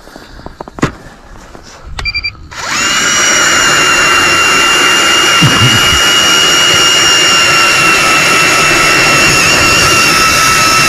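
Battery-powered electric ice auger starting up about two and a half seconds in and running steadily as it drills a hole through the lake ice, a loud even motor whine. A few clicks and knocks come before it starts.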